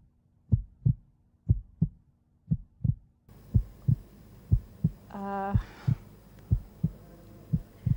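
Suspense heartbeat sound effect: low double thumps, about one pair a second. A short held tone sounds once about five seconds in.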